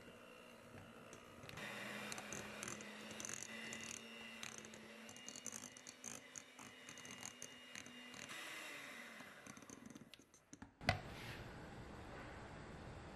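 Electric hand mixer running at medium-high speed, its beaters whipping an egg and almond-flour sponge batter in a glass bowl, with a steady motor hum and frequent light clicks. The running stops shortly before a single sharp click near the end.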